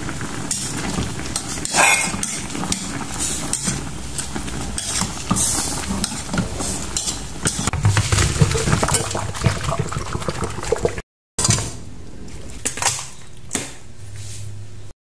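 Steel cooking pot and its contents handled in a kitchen: repeated clinks and knocks of metal. Partway through, boiled pork intestines and their broth are poured from the pot into a plastic colander in a steel sink, and then tipped into a steel bowl.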